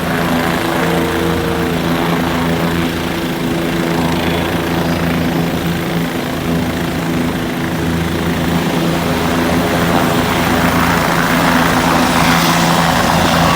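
Helicopter running on the ground without taking off: a loud, steady engine and rotor drone with a low hum. It grows slightly louder and noisier near the end.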